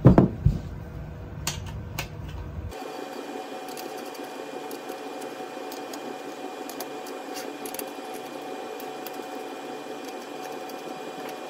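Hex key tightening the screws of a 3D printer's bed linear rails: a couple of knocks as the metal bed plate is handled, then light metal clicks and ticks over a steady hum.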